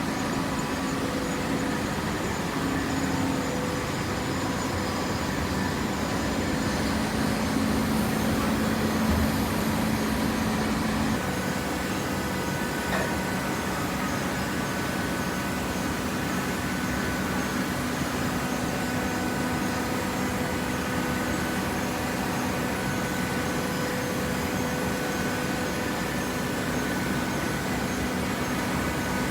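A paper recycling baler's hydraulic power unit running with a steady mechanical hum; its tone shifts about eleven seconds in.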